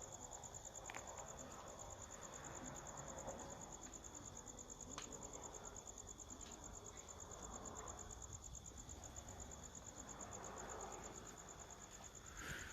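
Crickets chirping in a steady, rapid high trill, faint, with a few soft clicks.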